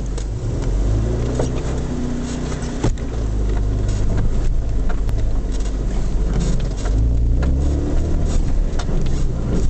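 Mercedes 230GE's four-cylinder petrol engine running in low gear, heard from inside the cab, its note falling and rising with the throttle as the vehicle crawls over rough ground. Bodywork and interior knock and rattle over the bumps, with one sharp knock about three seconds in.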